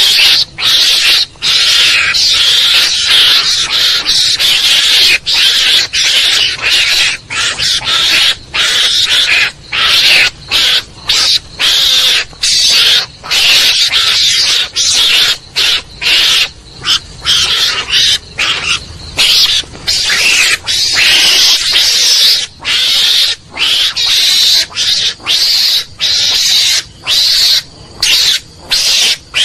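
Lure recording of garangan (Javan mongoose) calls: a continuous run of raspy, high chattering calls broken by brief gaps every half-second to a second, used by hunters to draw mongooses in.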